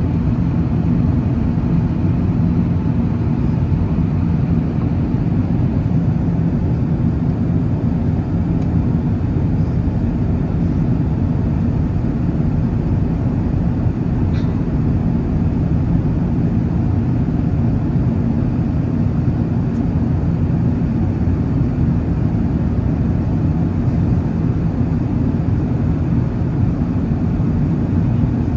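Steady roar inside the cabin of an Airbus A380 with its engines running, with a low, even hum underneath.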